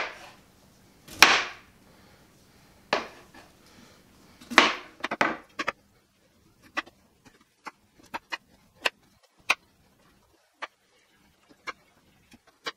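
Kitchen knife cutting cauliflower on a cutting board: four loud cuts in the first five seconds, two of them longer, then a run of light, quick taps and clicks of the blade on the board.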